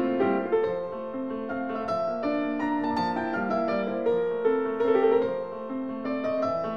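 Background classical piano music, a run of many notes.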